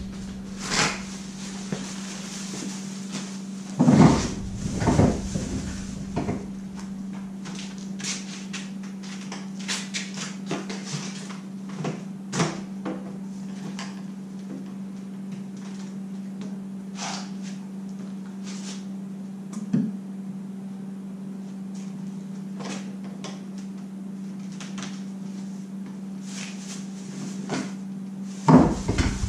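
Knocks and clatter of PVC pipe sections and fittings being handled, the loudest about four and five seconds in and near the end, over a steady hum.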